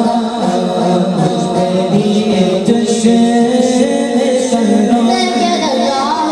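A boy's voice reciting a naat unaccompanied through a microphone and sound system, singing long drawn-out notes that waver in pitch.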